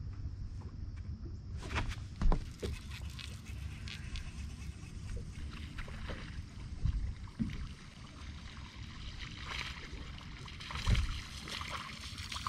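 Water lapping and sloshing against a bass boat's hull over a low rumble of wind on the microphone, with a few knocks on the boat, the loudest about two seconds in. From about nine seconds in, splashing as a hooked fish is fought to the surface.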